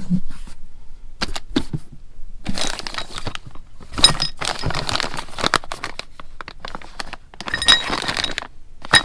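Small metal parts clattering and clinking as someone rummages through them, with sharp clicks throughout and ringing metallic clinks about four seconds in and again near the end.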